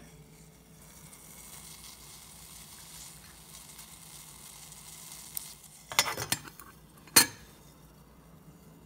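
Faint steady hiss of water heating in a metal pot over a cat food can alcohol stove, with tiny bubbles forming before the boil. A short cluster of metallic clinks comes about six seconds in, then a single louder clink a second later.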